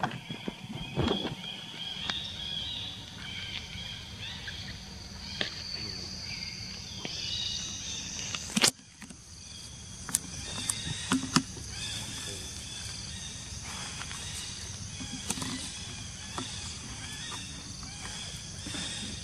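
Outdoor ambience of insects calling in high, pulsing bands, with scattered small clicks and one sharp click about halfway through.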